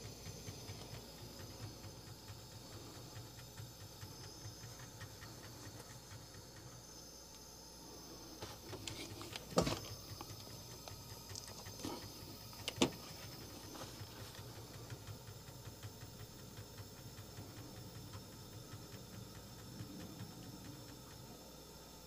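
Quiet room tone with a faint steady hiss and low hum, broken by a few knocks as a metal can and other small items are handled; the two loudest come about ten and thirteen seconds in.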